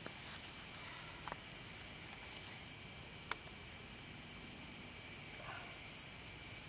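Night-time chorus of crickets and other insects, a steady high-pitched chirring with a pulsing chirp under it. Two faint short clicks come about a second in and a little after three seconds.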